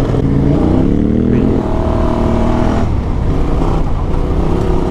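Motorcycle engine accelerating on the road: the pitch climbs for a couple of seconds, drops suddenly at a gear change just under halfway in, then climbs again, over a steady low rumble.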